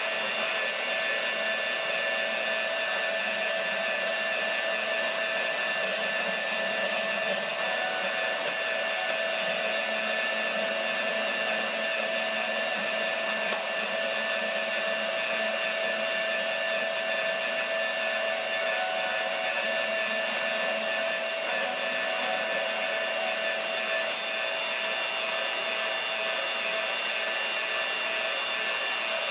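Bosch GCB10-5 portable deep-cut band saw running steadily through a metal-cutting demonstration: an even motor whine with several constant tones.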